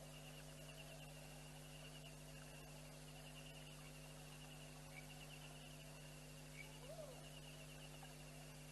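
Near silence: a steady low electrical hum with a faint, rapidly pulsing high trill of night insects and a couple of brief faint calls.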